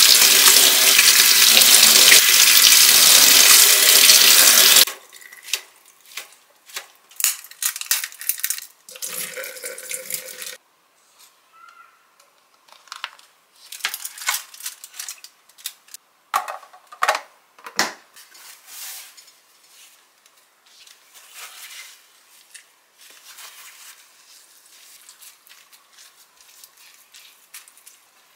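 Kitchen tap running in a strong stream into the sink as leaves are rinsed, shut off about five seconds in. After that come quieter, scattered handling sounds: clicks, taps and rustles of a plastic tub and paper towels.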